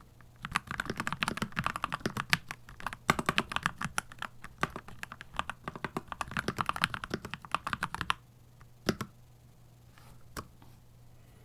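Typing on a Keychron C2 Pro 8K mechanical keyboard: a fast, continuous run of keystroke clicks that stops about eight seconds in, followed by two single keystrokes.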